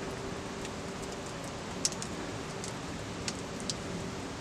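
Wood campfire crackling: a steady hiss with a few sharp pops, the loudest about two seconds in.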